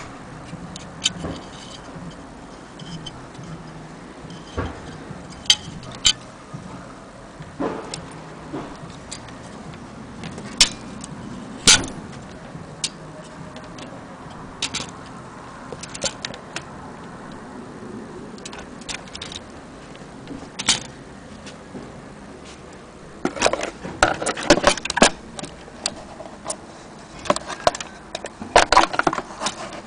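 Scattered sharp clicks and clacks of a small metal mechanism being handled, with two bursts of rapid clacking about three-quarters of the way through and again near the end.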